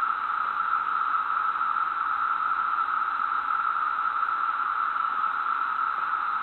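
Steady, even hiss with a constant band of noise in the upper middle range and no distinct events.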